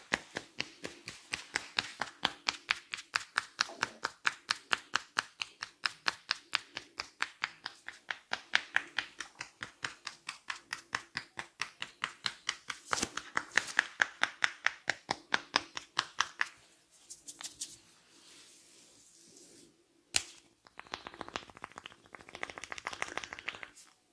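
Rapid, even hand tapping on the head during an Indian head massage, about five slaps a second, which stops about 16 seconds in. A single sharp click follows about 20 seconds in, then a spell of faster, denser hand sounds near the end.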